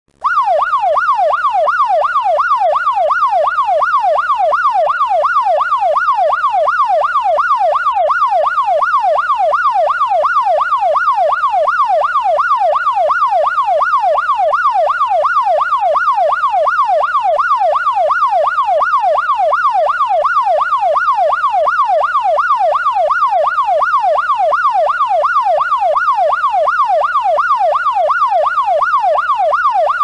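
Police car siren in a fast yelp pattern: one pitched tone sweeping rapidly up and down, about two cycles a second, at a steady, loud level.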